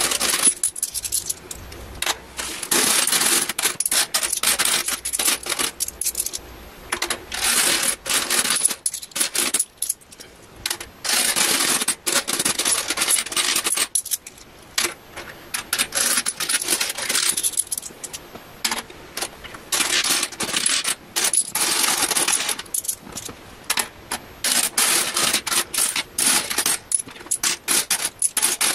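Loose British coins, mostly pound coins and 50p pieces, being raked, picked up and stacked by hand on a desk: dense metallic clinking in bursts a second or two long, with short quieter gaps between.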